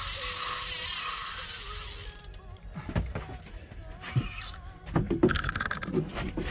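Fishing reel with a shark on the line, its ratchet buzzing fast for about two seconds and then stopping, followed by scattered knocks and clatter of gear being handled on the boat.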